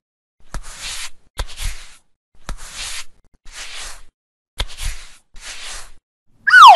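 A cloth wiping over skin: about six short scrubbing strokes, each starting with a click. Near the end comes a loud, falling, whistle-like sound effect.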